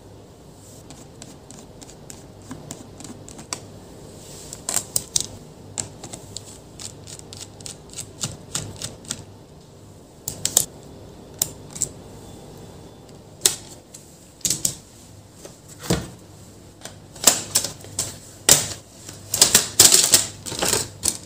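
Screwdriver work on the back-cover screws of an HP ProBook 450 G5 laptop: scattered light clicks and taps. Near the end comes a quick run of sharper clicks as the bottom cover is pried loose from its clips.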